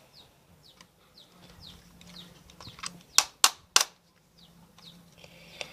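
A screwdriver working a small screw out of a plastic toy pistol's housing, with faint squeaky scraping ticks. Three sharp plastic clicks come a little past the middle.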